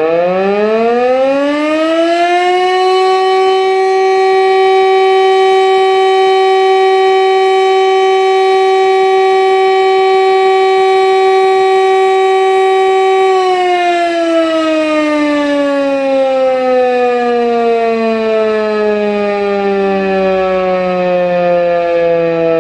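Old Rosenbauer FS8 electromechanical siren sounding a test signal: its tone rises for the first couple of seconds, holds steady at one pitch for about eleven seconds, then winds down in a slow falling glide as the rotor coasts to a stop.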